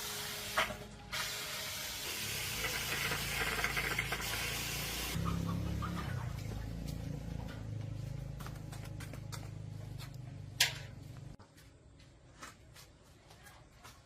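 Spray hissing in two bursts: a short one, then a longer one of about four seconds. A low hum with scattered small clicks follows, with one sharp click near the end of the hum.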